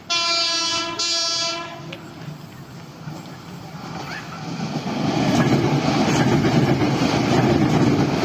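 KRL commuter electric train sounding its horn in two blasts of about a second each. The noise of the train running on the rails follows, growing louder over the last few seconds.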